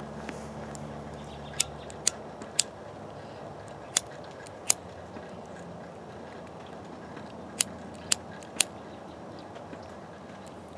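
A handheld lighter struck one-handed to relight a corncob pipe: eight sharp clicks in three quick runs, about half a second apart within each run.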